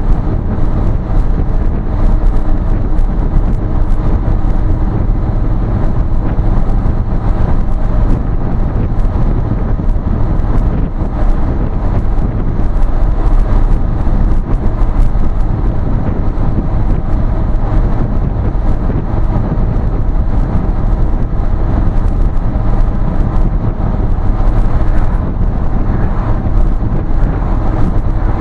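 Steady, loud drone of a vehicle driving at road speed, heard from inside the cab: low engine and exhaust hum with road noise.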